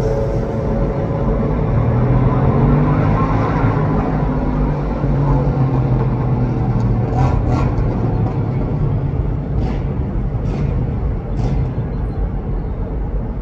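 Traffic on a city street: vehicle engines running over a steady low rumble, with a few short, sharp sounds between about seven and eleven seconds in.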